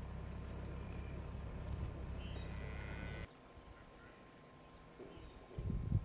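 Outdoor bush ambience: faint bird and insect chirping over a steady low rumble that cuts off suddenly about three seconds in. A couple of low rumbling surges come near the end.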